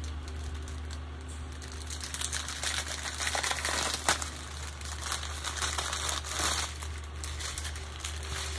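Clear plastic packaging crinkling as it is handled and opened by hand, with one sharp snap about four seconds in.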